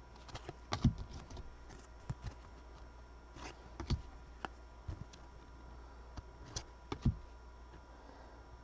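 Trading cards being handled and flipped through in the hands: irregular light clicks and taps of card edges, with a few louder taps about one, four and seven seconds in.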